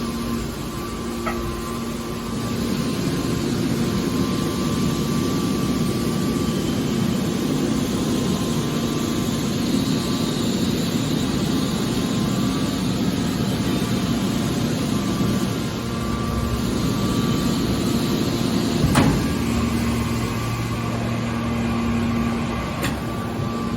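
Hydraulic metal baler running: a steady machine hum with a sharp clank about nineteen seconds in.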